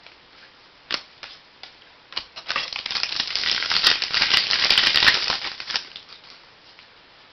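Trading-card pack wrapper being crinkled and torn open: a few sharp clicks about a second in, then a dense crackling run of about three and a half seconds.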